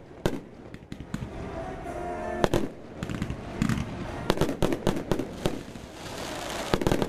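Aerial fireworks shells bursting overhead in a rapid, irregular series of sharp bangs, thickest around the middle and near the end.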